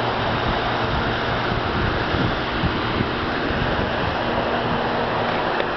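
Steady rushing noise with a faint low hum: a Ford Crown Victoria police car idling close by, with wind on the microphone.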